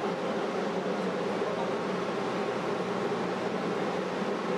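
Steady machinery drone with a low buzzing hum that holds at one pitch throughout.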